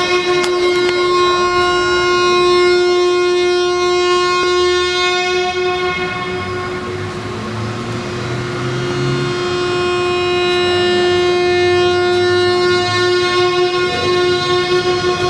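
A sustained drone in the dance's accompanying music: one loud, steady pitched tone with many overtones, held without a break and easing slightly in loudness about halfway through.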